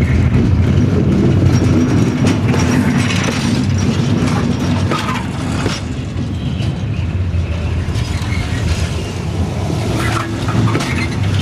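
Freight wagon wheels rolling past close up over jointed rail: a steady low rumble with sharp clicks as the wheelsets cross the rail joints, in clusters in the first half and again near the end.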